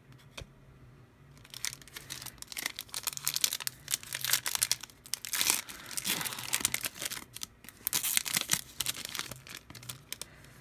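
Plastic wrapper of a pack of baseball trading cards crinkling and tearing as it is ripped open, in dense irregular crackles that start about a second in, over a faint low hum.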